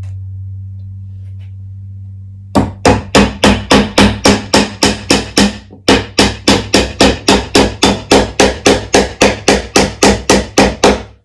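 A hammer driving a nail into the wooden roof of a birdhouse kit. It starts about two and a half seconds in with a long run of quick, even blows, several a second, with one short pause partway through.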